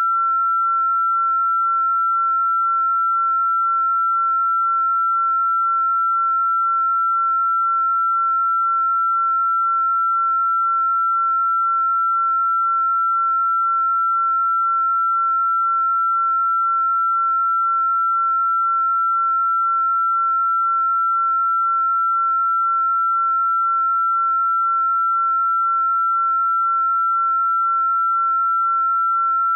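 A single pure electronic sine tone held at one steady, fairly high pitch, with no wavering, no overtones and no other sound.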